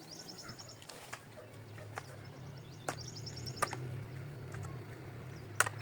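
A small bird trilling in quick, high series of notes, twice, while a few sharp knocks sound at irregular intervals, the loudest near the end, over a steady low hum.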